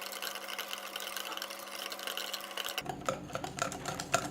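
Rapid mixing of a runny egg, oil and sugar batter in a bowl, the utensil making fast, even clicks against the bowl. The sound changes in tone about three seconds in.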